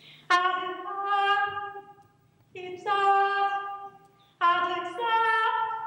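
A woman singing a cappella without words: three long held notes with short breaks between them. The last note steps up in pitch partway through.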